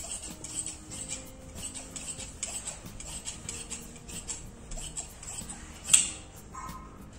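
Tailoring scissors snipping through fabric in a quick run of repeated cuts, with one louder snap about six seconds in.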